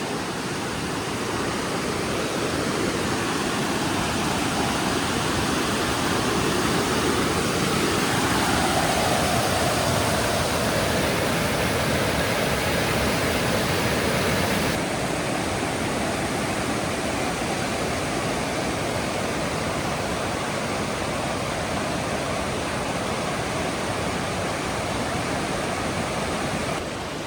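Rushing water of a forest stream or cascade, a steady even rush that swells a little in the middle.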